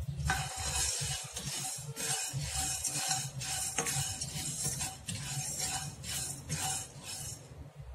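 Spatula stirring dry whole spices (coriander seeds, peppercorns, cinnamon, cloves, cardamom) in a nonstick kadai: repeated scraping strokes with the seeds rattling against the pan, easing off near the end. The spices are being dry-roasted on low flame.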